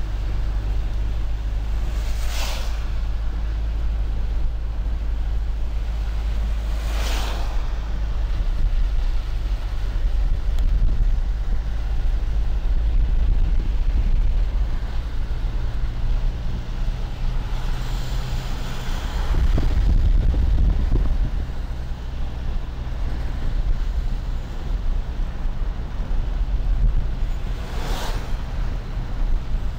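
Cabin noise in a moving car on a wet road: a steady low rumble of engine and tyres, with brief whooshes of vehicles passing about two, seven and twenty-eight seconds in.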